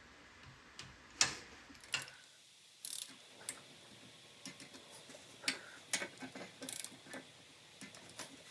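Click-type torque wrench ratcheting and clicking on cylinder head bolts being torqued to a light first stage of 5 foot-pounds: a scatter of sharp clicks and short runs of ratchet ticks, irregularly spaced.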